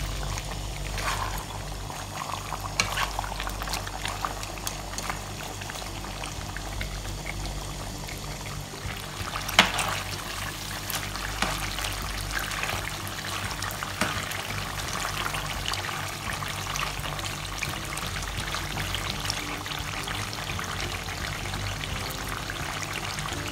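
Chicken skins cooking over high heat in the liquid they have released, with no added oil or water: a steady bubbling sizzle and crackle as they begin to render their own fat. A few sharp clicks break in, the loudest about ten seconds in.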